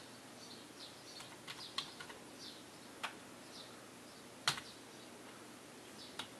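Computer keyboard arrow keys pressed one at a time: several separate quiet clicks, the loudest a little past halfway.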